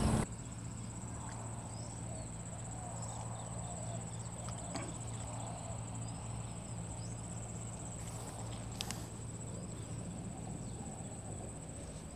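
Insects trilling steadily at a high pitch over a low steady hum, with faint short chirps scattered through; a single sharp click about nine seconds in.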